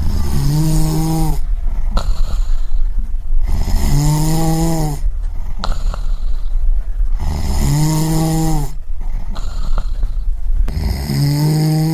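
A person snoring in a steady rhythm: four long, pitched snores about every three and a half seconds, each lasting about a second, with breathing between them.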